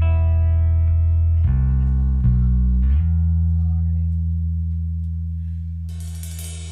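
Down-tuned, distorted electric guitar and bass playing a slow, heavy doom-metal riff of long low notes. The last note rings out and slowly fades, and a cymbal crash comes in near the end.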